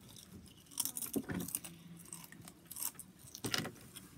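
Scattered small clicks and rustles of things being handled, in short clusters about a second in and again near the end.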